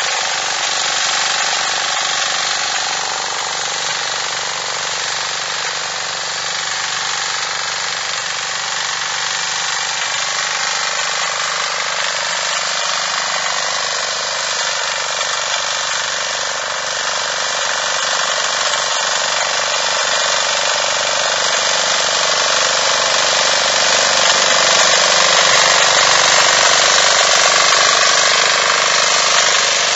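Diesel walk-behind tiller's engine running steadily under load as its tines churn the soil, louder over the last several seconds.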